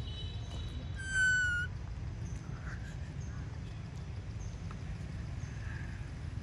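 A single high, clear animal call, about half a second long, about a second in, dipping slightly at its end, over a steady low rumble.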